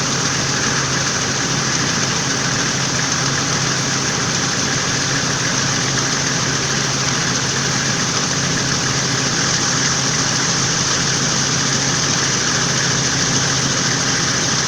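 Toyota Land Cruiser engine idling steadily with a fast, even, ringing knock, which the owner hears when the engine is cold.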